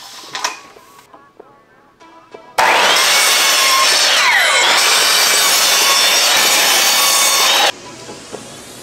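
Ryobi sliding miter saw cutting through an old wooden board. After a couple of seconds of quiet handling, the saw starts suddenly and runs loud for about five seconds, with a tone that falls in pitch as the blade bites into the wood, then cuts off abruptly.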